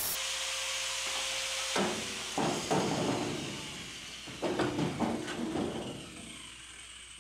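Sheet-metal knocks and clunks from a truck bed section being lowered on an engine hoist and fitted against the rest of the bed, about six of them in the middle seconds, over a steady hiss that fades away.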